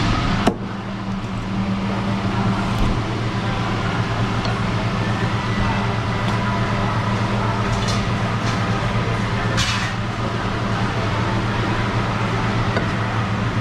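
Steady low mechanical hum, with a sharp knock about half a second in and two brief hissing scrapes near the end.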